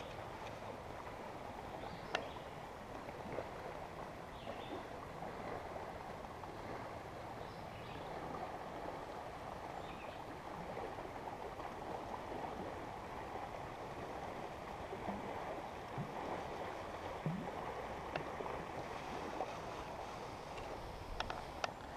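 Steady rush of a rain-swollen creek's flowing water, with a few faint ticks.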